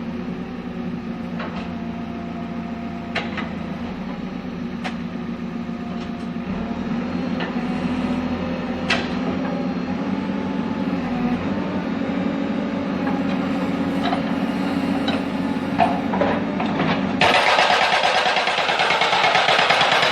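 Backhoe's diesel engine running steadily, with scattered sharp knocks. About three seconds from the end the hydraulic breaker hammer starts, pounding rapidly and loudly on stone.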